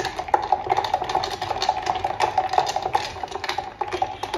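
Ice cubes clinking rapidly against the sides of a glass pitcher of cold drink as it is stirred with a spoon, a dense, continuous rattle of clicks with the glass ringing.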